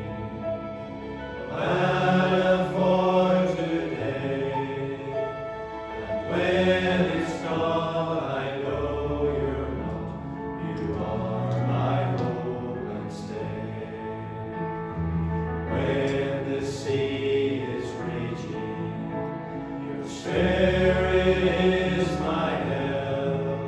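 Men's choir singing a slow worship song in harmony, accompanied by a Nord stage piano, with phrases swelling louder and easing off.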